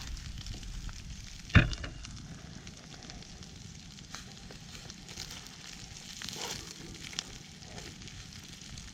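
Pork belly wrapped in banana leaf sizzling and crackling on a grill, with one sharp knock about one and a half seconds in.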